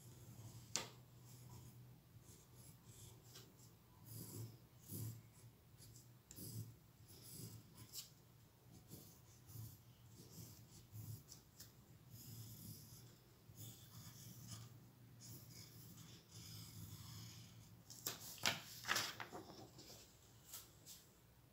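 Graphite pencil scratching in short strokes on a sheet of paper, faint over a steady low hum. Near the end the paper sheet rustles and crackles as it is picked up.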